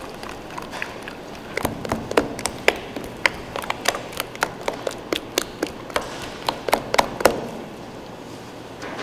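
An irregular series of sharp taps and knocks from hand work with utensils while making chocolate, about two to three a second, stopping about seven seconds in.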